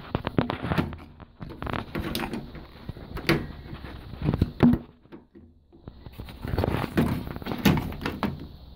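Irregular knocks, clunks and rattles of handling a washing machine's main control board and its wiring-harness connectors, with a short lull about five seconds in.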